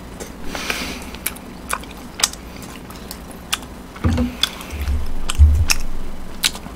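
Close-miked chewing and mouth sounds of someone eating, with scattered sharp clicks of chopsticks and metal tongs against the pans and bowls. A few low thumps come about four to five seconds in.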